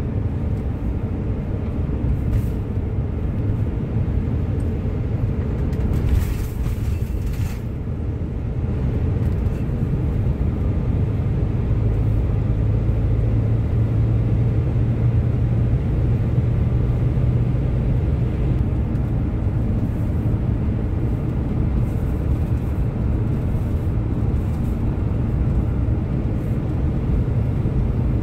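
Camper van driving on a road: a steady low rumble of engine and tyres, with a drone that swells in the middle, and a short hiss about six seconds in.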